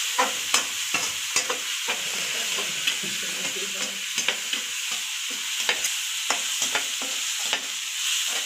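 Chopped onion, bell peppers, ginger and garlic sizzling in hot oil in a metal kadhai, with a steady hiss, while a spatula stirring them scrapes and taps against the pan in quick irregular clicks.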